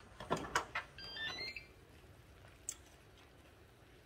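Electric pressure cooker's lid being twisted open: a few light clicks of the lid turning, then the cooker's short electronic chime of beeps stepping upward in pitch about a second in, and one more click near three seconds.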